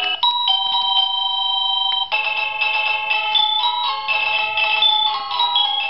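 SadoTech Starpoint wireless doorbell receivers playing electronic chime melodies. A slow two-note chime comes first, then about two seconds in a quicker tune of stepping notes. These are the receivers ringing as the newly paired buttons and motion sensor are tested.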